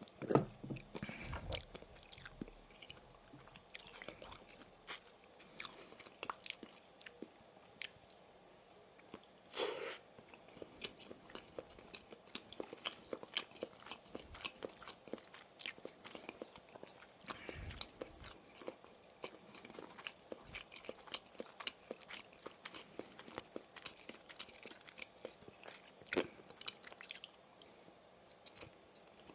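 A person biting and chewing Maxbong fish sausages close to the microphone: steady wet chewing with many small mouth clicks, and a few louder bites near the start, about a third of the way in, and near the end.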